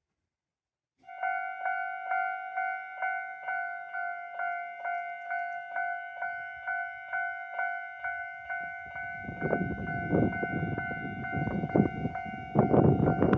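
Japanese railway level-crossing warning bell in the standard JR electronic tone, starting about a second in and ringing at about two strikes a second. About two-thirds of the way through the rumble of an approaching train builds up under it and grows loud near the end.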